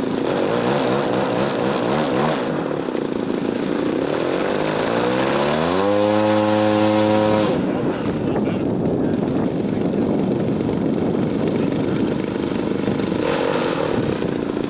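Engine of a 1/3-scale Piper Super Cub RC plane in flight, with wind noise on the microphone. Its pitch climbs from about four seconds in, holds high for a second or two, then drops back sharply.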